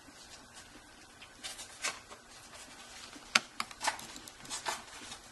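A few light, scattered clicks and taps of a small precision screwdriver and screws being handled against the opened Kindle Fire HD's frame as the screws go back in, the sharpest about three and a half seconds in.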